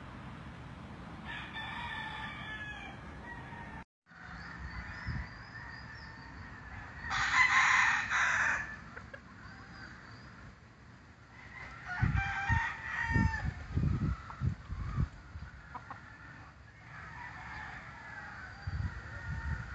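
Roosters crowing, with clucking between the crows. The loudest is a long, harsh crow about seven seconds in, and there are a few low thumps around the middle.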